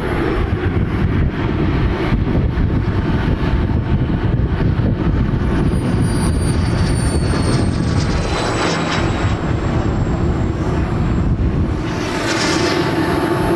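Turbine engine of a radio-controlled model jet running loud, its high whine falling slowly in pitch over several seconds as the jet passes.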